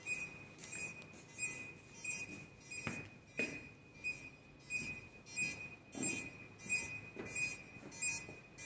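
Electronic rodent repeller sounding a rapid, regular train of sharp high-pitched electronic pulses, about one and a half a second, over a steady high tone. A few dull thumps come in between.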